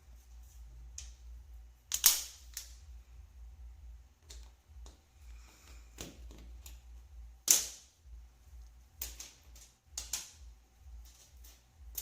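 Sharp plastic clicks and snaps, several seconds apart, from a switch opener and mechanical keyboard switches being handled. The two loudest come about two seconds in and again past the middle, over a faint low hum.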